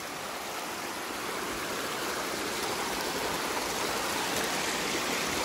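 Small forest waterfall splashing steadily, the rush of water growing slowly louder.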